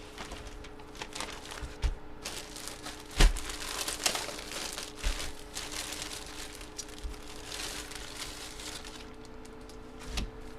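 Plastic packaging crinkling and rustling as it is handled, with scattered clicks and taps, the loudest a sharp knock about three seconds in.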